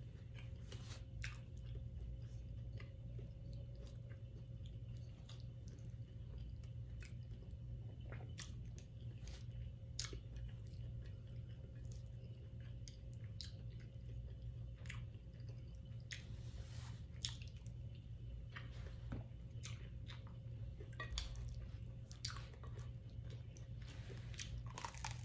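A person chewing food close to the microphone, with many short, irregular clicks and smacks of eating and chopsticks on a plate, over a steady low hum.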